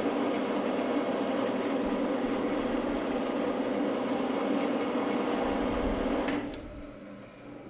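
Drill press running and drilling through round stock held in a V-block: a steady motor hum under the grind of the cut. The sound drops sharply about six seconds in and carries on faintly.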